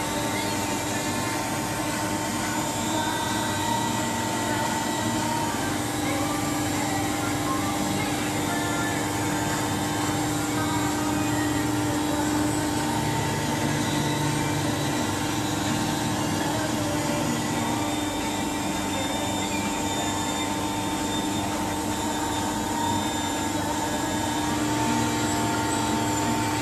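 Jones & Shipman 1302 surface grinder running: its wheelhead motor and spinning grinding wheel give a steady, even hum with a couple of held whining tones.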